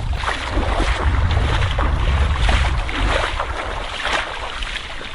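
Water splashing and churning, with heavy wind buffeting the microphone as a low rumble.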